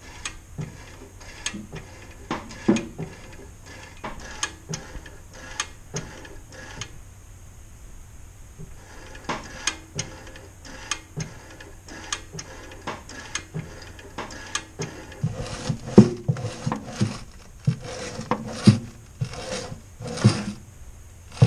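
Throttle pedal and carburettor linkage on an Austin Healey 100/4 clicking and clacking as the pedal is pressed and let go, the new return spring snapping it back; the engine is not running. Irregular sharp clicks and knocks, a short lull about midway, then a denser run of louder knocks near the end.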